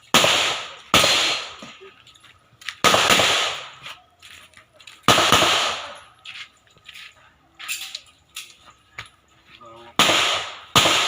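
Taurus pistol fired six single shots at uneven intervals: three in the first three seconds, one about five seconds in, and two close together near the end. Each shot is a sharp crack followed by a trailing echo, with faint small clicks in the gaps.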